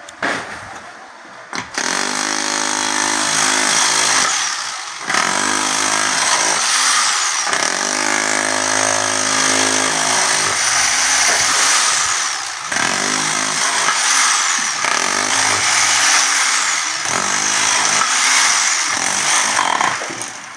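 Electric demolition hammer chiseling through a concrete floor, loud and continuous in several long runs with short pauses between them.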